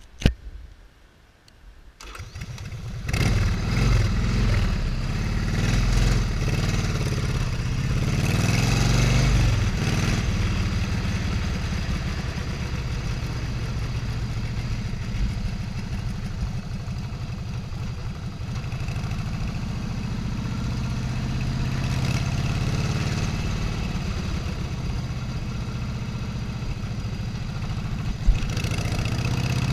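Motorcycle engine starting about two seconds in, then revving up and down as the bike pulls away and running steadily while riding. A brief sharp knock near the end.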